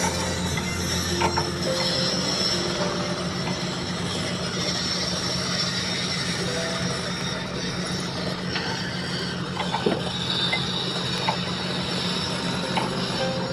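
Excavator's diesel engine running at a steady idle hum, with a few sharp metallic clinks.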